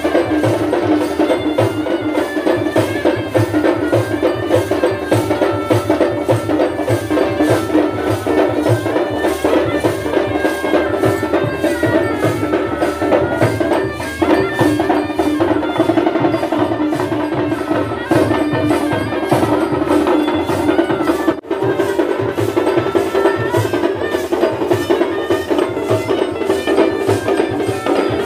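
Devotional folk music for a dindi procession: a melody over a fast, steady beat of small hand cymbals and drum. It breaks off for an instant about two-thirds of the way through.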